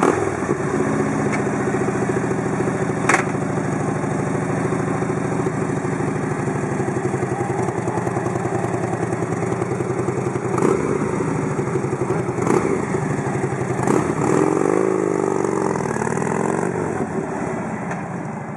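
Harley-Davidson Ultra Classic Electra Glide's V-twin idling steadily, with a few sharp clicks. About three-quarters of the way in the engine note rises and falls as the bike pulls away, then slowly fades as it rides off.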